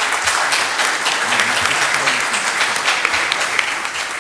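Audience applauding: dense clapping from a roomful of people, thinning out near the end.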